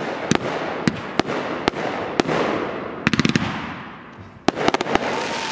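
Consumer (Class C) fireworks going off: a string of sharp bangs about every half second over a rushing hiss, with rapid crackling about three seconds in and again after four and a half seconds, and a short whistle near the end.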